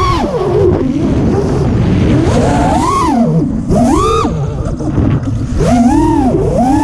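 Brushless motors and propellers of a 5-inch FPV quadcopter whining, the pitch swooping up and down about four times as the throttle is punched and eased, over a rush of air.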